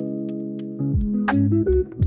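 Background music: sustained keyboard and bass notes with a plucked melody over a steady percussion beat.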